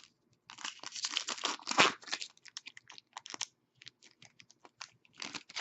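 Foil wrapper of a trading-card pack crinkling and tearing for about two seconds. Then come scattered light clicks and rustles of cards being handled, and another short crinkle near the end.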